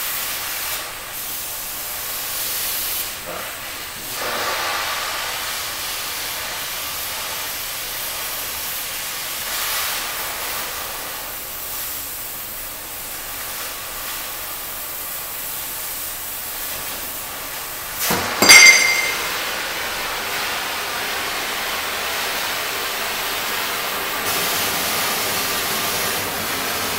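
Oxyacetylene cutting torch hissing steadily as its oxygen jet cuts through a steel bar. About 18 seconds in comes a loud metallic clang with a short ring, the cut-off piece of steel dropping. Near the end the hiss gets louder as the torch is pulled off the work with a large open flame.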